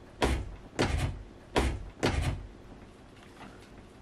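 An interior door knocking or banging: four sharp thumps in the first two and a half seconds.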